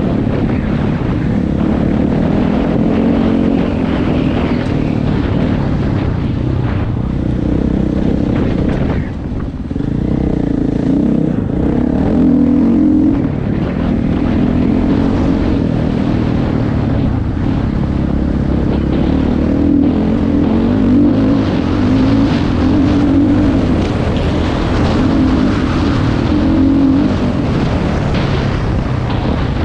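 2012 KTM 500 EXC dirt bike's single-cylinder four-stroke engine running under changing throttle while being ridden on a trail. It rises and falls with the throttle and eases off briefly about nine seconds in.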